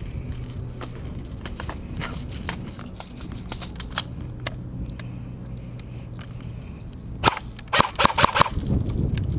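Airsoft guns firing: scattered single pops, then a quick volley of several shots about seven seconds in.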